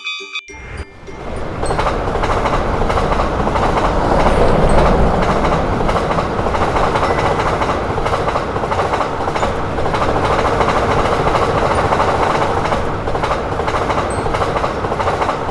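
A train passing at speed: a steady rush and rumble of wheels on rails with faint rhythmic clacking. It builds up about a second in and cuts off at the end.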